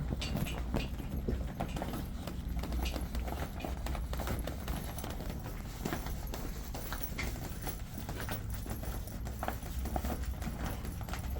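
Irregular clicks and rubbing as a vinyl enclosure panel's edge is fed and pulled along a golf cart's roof rail track, over a steady low hum.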